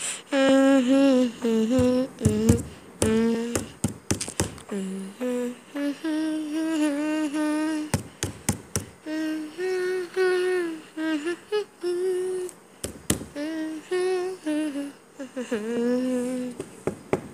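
A single voice humming a slow melody in held, wavering notes, with sharp clicks between phrases.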